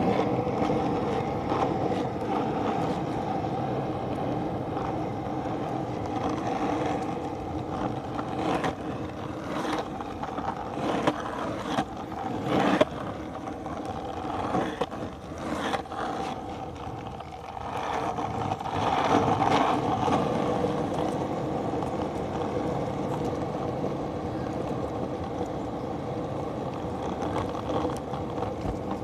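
Skateboard wheels rolling over pavement: a steady rumble with sharp clacks now and then as the wheels hit cracks and bumps, the loudest about 13 seconds in.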